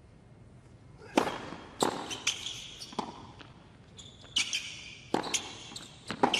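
Tennis ball struck back and forth with racquets in a serve and baseline rally on a hard court: about half a dozen sharp hits, each with a short echo in the arena. The first hit, the serve, comes about a second in, with the return about two-thirds of a second later.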